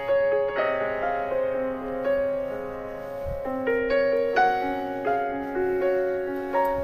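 Background piano music, single notes and chords struck one after another and left to ring.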